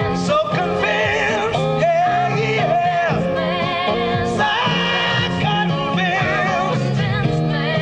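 Rock music playing: a full band with a wavering lead melody line over a repeating bass line.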